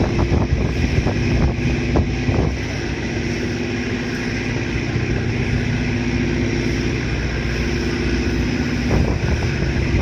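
The passenger ferry Sarubia Maru's engines droning steadily as it comes in toward the quay. Wind gusts buffet the microphone in the first couple of seconds and again near the end.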